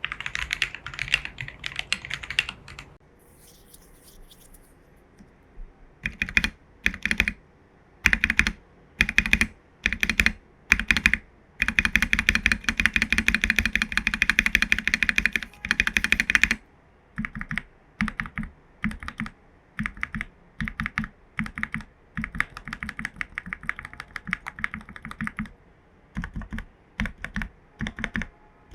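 AKKO PC75B Plus mechanical keyboard with lubed Jelly Black linear switches and XDA-profile keycaps being typed on. There are spaced single keystrokes, then a fast burst of typing in the middle, then steadier keystrokes, with two short pauses.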